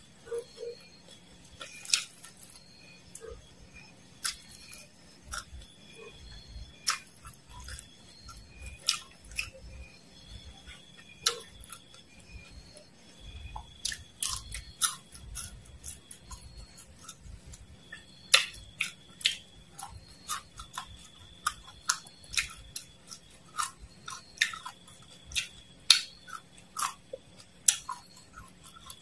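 Close-up crunching and chewing of crisp fried dried worms and mole crickets: an irregular run of sharp, crisp crunches, about one or two a second.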